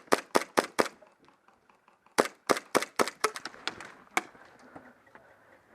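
Airsoft rifle firing quick single shots, about four a second: a short string in the first second, then after a pause a longer string that fades off, the last shot a little after four seconds in.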